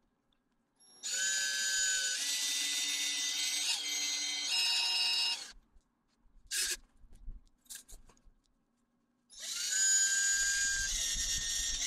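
Cordless drill spinning a small diamond hole saw into brick, a steady high whine with several tones. It stops about five and a half seconds in, a few short knocks follow, and it starts again about nine seconds in.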